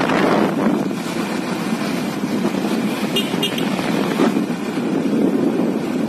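Motorcycle riding along a paved road: steady wind rush on the microphone mixed with engine and tyre noise.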